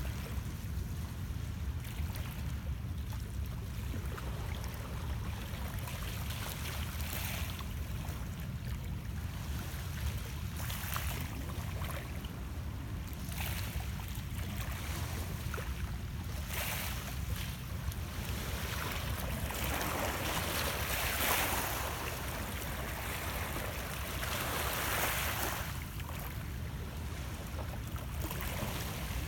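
Small lake waves lapping and washing against shoreline rocks in irregular swells, loudest about two-thirds of the way through, over a steady low rumble.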